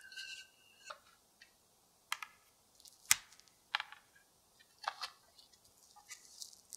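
Plastic cling wrap crinkling and squeaking under a wooden rolling pin and hands over tart dough, with several sharp clicks as clear acrylic guide bars are set down on the wooden board; the loudest click comes about three seconds in.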